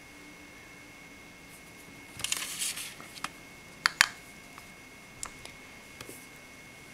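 Small plastic items handled close to the microphone: a brief crinkling rustle about two seconds in, then a few sharp clicks, the loudest near the middle, and fainter ticks after.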